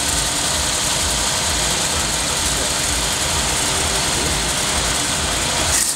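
1980 Chevrolet small-block 5-litre V8 idling steadily with a low throb, breathing through a catalytic converter and a baffled silencer. It runs quiet, calm and civilised.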